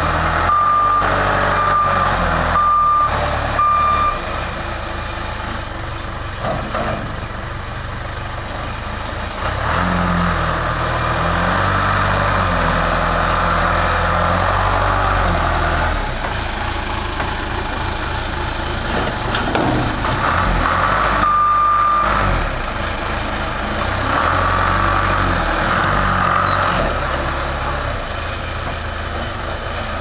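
1983 John Deere 510B backhoe loader's diesel engine running, its revs rising and falling as the machine is driven. A reversing alarm beeps several times at the start and once more about two-thirds of the way through.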